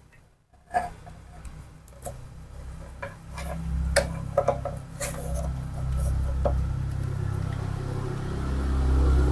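Rewound 1 HP single-phase capacitor water pump motor running on a test: a steady electric hum that starts with a click under a second in and grows louder about three seconds in, with scattered clicks and rattles.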